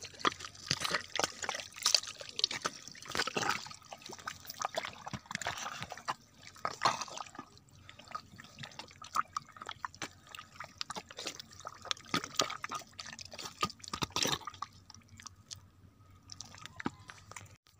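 Wet mud squelching and splatting in short, irregular bursts as a hand and arm dig deep into a waterlogged eel burrow.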